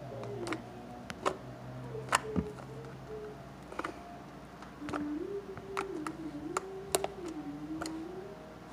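Homemade slime being squeezed and stretched by hand, giving off irregular sharp clicks and small pops.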